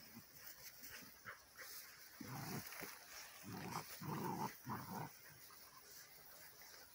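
A Labrador and her black Borador puppy play-fighting, with a run of short, low play growls between about two and five seconds in.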